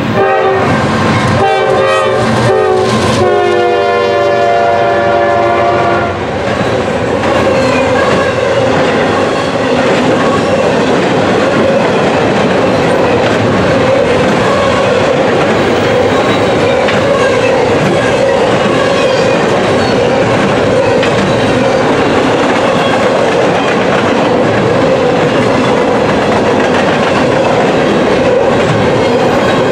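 A Norfolk Southern freight locomotive's multi-chime air horn sounds several short blasts, then one long blast that cuts off about six seconds in. After that, double-stack container cars roll steadily past on the rails with a continuous rumble and clickety-clack of wheels.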